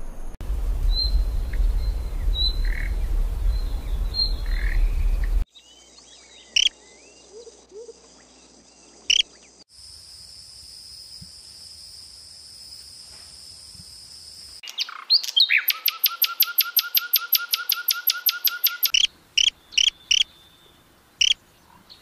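Small birds calling, in several abrupt cuts. First come a few chirps over a low rumble, then scattered calls and a steady high whine. About fifteen seconds in, a fast even trill of roughly seven or eight notes a second runs for about four seconds, followed by a handful of sharp single chirps.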